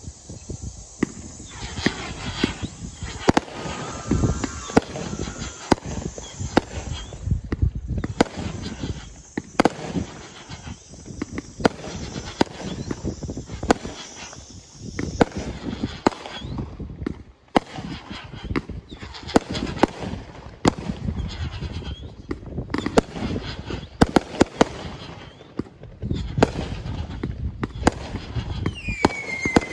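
Fireworks display: a rapid, irregular string of launch thumps and aerial bursts with crackle, and a whistle near the end.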